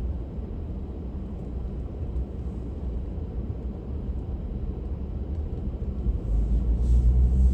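Engine and road rumble heard from inside a moving vehicle, steady and low, growing louder about six seconds in as the vehicle speeds up.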